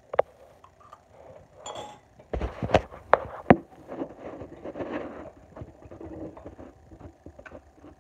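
A person eating close to the microphone, with a few sharp clicks and knocks between about two and a half and three and a half seconds in.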